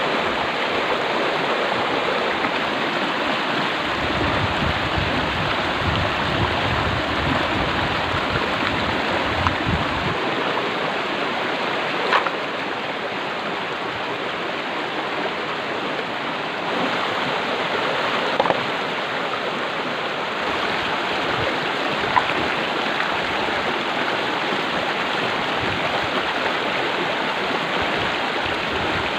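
Steady rush of flowing stream water, with a few short sharp knocks.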